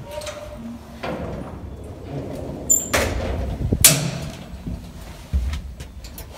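Lift's sliding doors running and shutting, with two sharp knocks about three and four seconds in and a low thump after five seconds, among rustling of the handheld phone.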